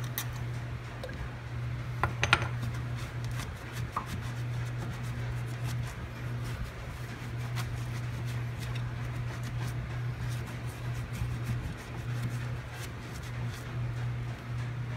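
Hand tools clinking and scraping on metal, with a cluster of sharper clinks about two seconds in, over a steady low hum.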